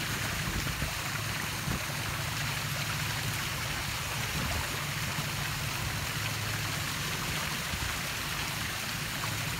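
Steady rush of water with a low, steady hum underneath, as of a motorboat under way.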